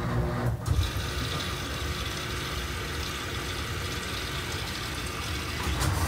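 Miele Touchtronic W1113 front-loading washing machine taking in water at the start of its wash: a steady hum stops with a knock about half a second in, then water rushes into the drum. Near the end, a low thump.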